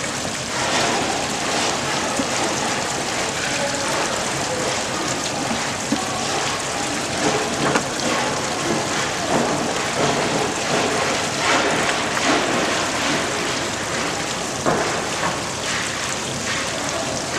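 Water washing and splashing across the deck of a running shaking table (gravity concentrator), a dense, steady, rain-like hiss.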